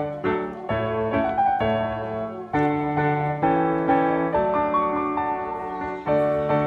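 Background piano music: a slow melody of struck notes and chords, each note fading after it is played.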